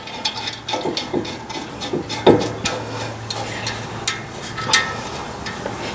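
Scattered metal clicks, light knocks and scraping from hand work on a brake rotor at the wheel hub as it is seated and held with a lug nut, with a faint low hum through the middle.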